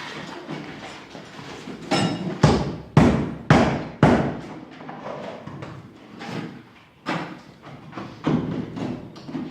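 Heavy thumps and knocks: four hard blows in quick succession, about half a second apart, starting a couple of seconds in, then scattered lighter knocks.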